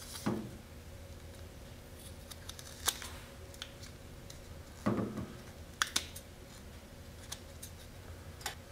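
Scissors snipping excess carbon fiber cloth off a landing gear layup: scattered short sharp snips and clicks at irregular intervals.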